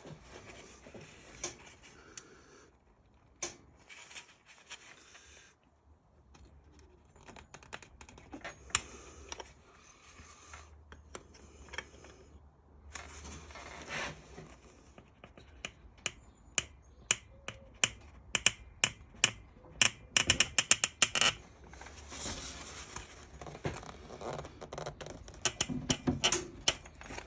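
Spanner working on a nut welded onto a seized, snapped exhaust-manifold stud, making sharp metallic clicks and taps. About twenty seconds in comes a quick run of clicks.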